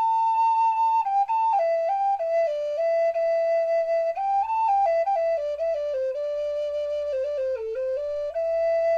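Background music: a slow solo woodwind melody, flute-like, moving from one held note to the next.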